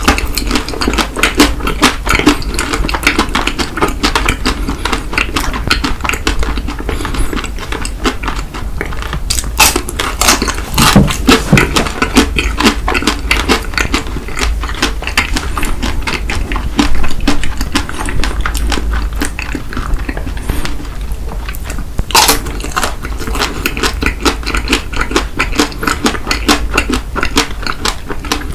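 Close-miked chewing and crunching of chocolate-coated candy bars by two people, a steady run of wet, crackly mouth clicks with louder crunches here and there.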